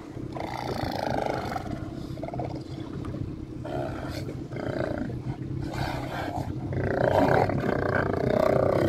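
Several Steller sea lions roaring over one another in repeated deep calls, loudest near the end. A steady low hum runs underneath.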